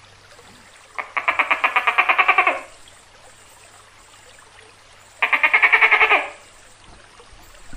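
Tokay gecko giving two rapid rattling calls, each a fast train of about ten clicks a second. The first lasts about a second and a half and starts about a second in; the second, about a second long, comes near the end.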